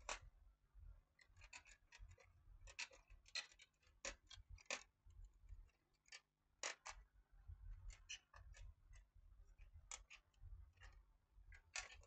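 Faint, irregular clicks and taps of a DVD player's plastic casing, front-panel clips and power supply board being handled and worked loose by hand.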